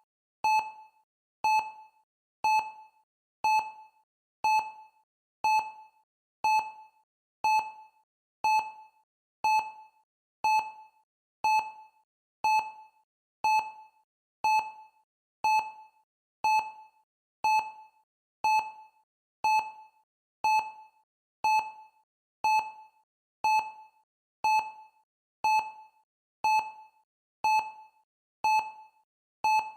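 Countdown timer beeping once a second: short mid-pitched electronic beeps with a sharp start, each dying away within about half a second.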